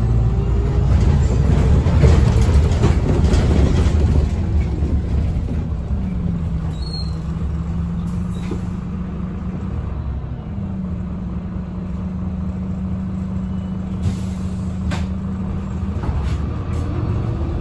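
Irisbus Agora Line city bus with a Voith automatic gearbox, heard from inside. For the first few seconds it runs with a loud rumble and slows down, then stands with the diesel engine idling in a steady hum. Near the end the engine picks up again as the bus moves off, and a short hiss of air comes shortly before that.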